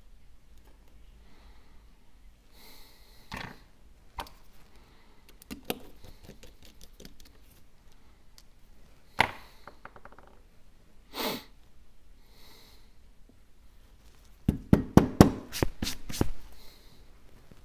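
Small hand tools and phone parts being handled on a work surface: scattered light clicks and taps, then a quick run of louder clicks and rattles near the end.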